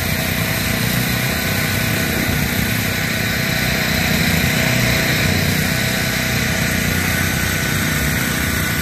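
Steady traffic noise from cars driving on a wet road: a constant hiss of tyres on wet pavement over a low engine rumble.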